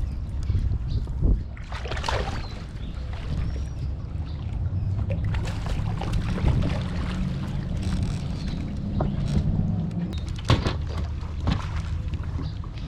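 Steady low rumble of wind and water around a fishing kayak on the lake, with a few sharp knocks of gear against the hull about a second in and twice near the end.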